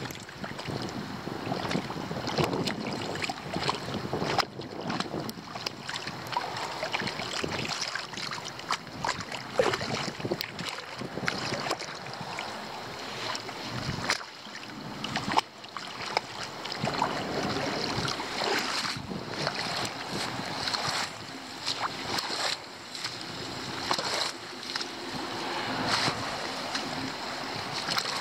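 Floodwater at a leaf-blocked roadside drain splashing and sloshing unevenly, in irregular surges.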